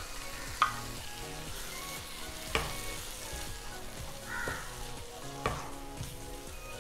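Onion and spice masala with freshly added tomato paste sizzling in a nonstick frying pan while being stirred with a wooden spatula. Three sharp knocks of the spatula, the loudest about half a second in.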